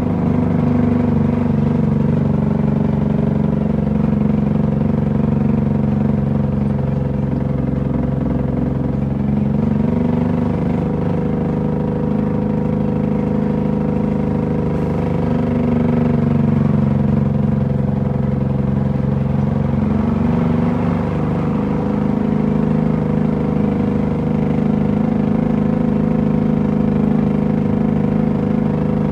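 Heavy truck's diesel engine running under load, heard from inside the cab. Its pitch drops and climbs back a few times, about ten, fifteen and twenty seconds in.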